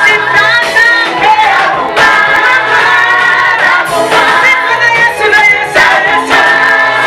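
A choir, led by women's voices, singing a Swahili gospel praise song over a band backing with a steady bass line and beat.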